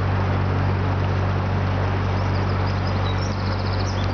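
Narrowboat diesel engine running steadily while under way, a constant low hum. Small birds chirp from about halfway through.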